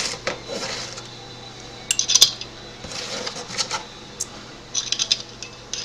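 Small metal clutch parts clinking and rattling against each other as they are handled, in several short clusters of light clicks.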